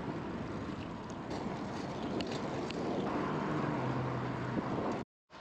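Steady road and traffic noise while riding a bicycle through the street, with a vehicle's low engine hum passing in the second half. The sound cuts off abruptly about five seconds in.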